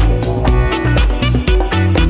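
Upbeat background music with a steady dance beat, bass line and melodic instruments.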